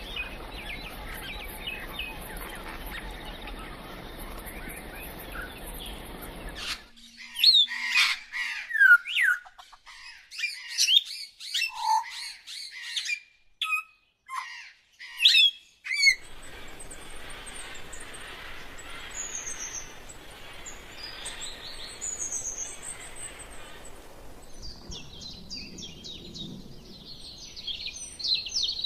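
Wild birds calling over a steady forest hiss. About a third of the way in the hiss cuts out abruptly and loud, sharp calls sweeping down in pitch come in quick succession for several seconds. Then the hiss returns with scattered high whistles and a dense run of chirping near the end.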